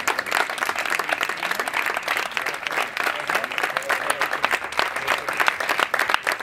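Crowd applauding, many hands clapping at once.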